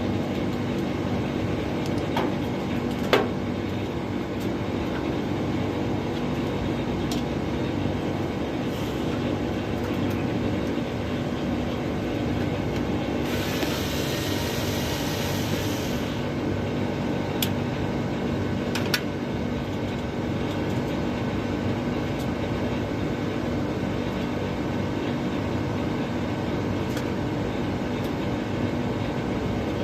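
Large air conditioning unit running, a steady mechanical hum with a few sharp clicks. A burst of hiss lasts about three seconds midway.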